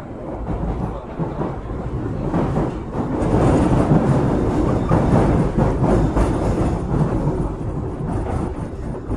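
Osaka Metro 23 series subway train running, heard from inside the car: steady wheel-on-rail rolling noise with a deep rumble that grows louder for the first three seconds or so, stays loud for a few seconds, then eases off near the end.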